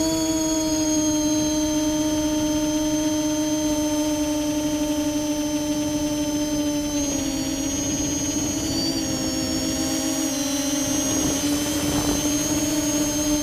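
Multirotor drone's electric motors and propellers humming steadily, with the pitch shifting up and down for a few seconds around the middle as the throttle changes.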